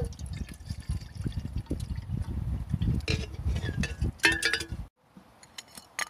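Water poured from a metal bottle into an empty black camping kettle, the stream splashing and gurgling onto the kettle's base. A few ringing metal clinks come near the end before the sound cuts off suddenly about five seconds in.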